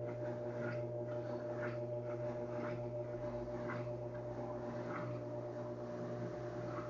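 Electrolux LTD13 top-load washing machine running in its rinse cycle: a steady motor hum with a soft swish about once a second.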